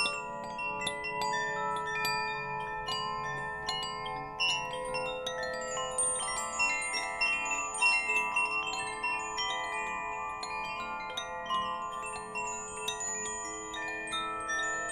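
Wind chimes ringing, struck several times a second, with tones of many pitches overlapping and ringing on.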